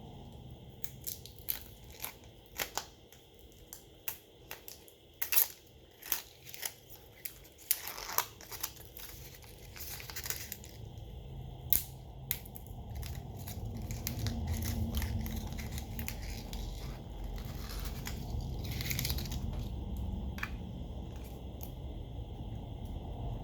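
Small hand tools clicking and tapping against a smartphone's parts during disassembly, many sharp ticks in the first half, with a few short scraping sounds in between.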